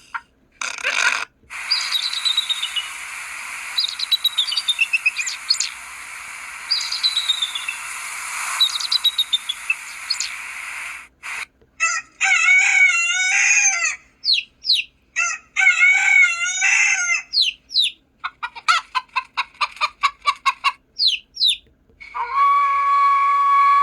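Ringtones of a Samsung Anycall SPH-W8300 phone: a recorded forest scene, birds chirping over a steady hiss, then a rooster crowing twice and chicks peeping in quick runs. Near the end a new ringtone starts with a long, slowly falling tone.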